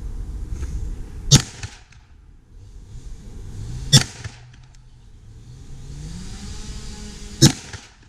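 Three single gunshots, spaced about two and a half to three and a half seconds apart, each with a short echo, as slow aimed fire at a target. A low engine-like rumble runs underneath.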